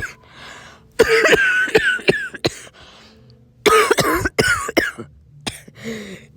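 Human coughing in two hacking fits, the first about a second in and the second past the middle, with a couple of single coughs near the end: coughing set off by dust caught in the throat.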